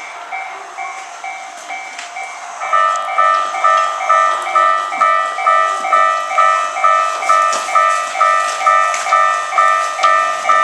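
Electronic warning bells of a Japanese railway level crossing ringing, a repeating two-tone ding about twice a second; a second, louder crossing bell joins about a quarter of the way in.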